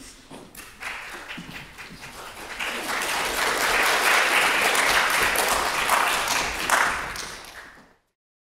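Audience applauding, building over the first few seconds, holding steady, then dying away and cutting off abruptly near the end.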